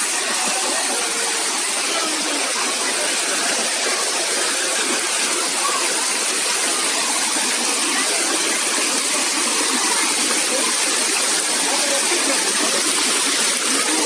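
Steady rush of a waterfall and the fast stream below it, a loud, even hiss of falling and tumbling water.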